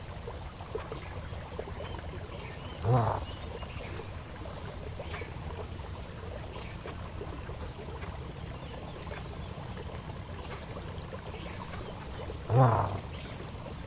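Two short, low animal calls, about ten seconds apart, over a steady high-pitched insect drone.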